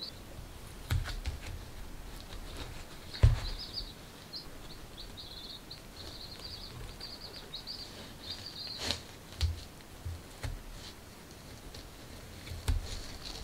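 Baby chicks peeping: a run of high, quick peeps from about three seconds in until about nine seconds in. Scattered clicks and taps from hands working cardboard and masking tape are heard throughout, the loudest a knock about three seconds in.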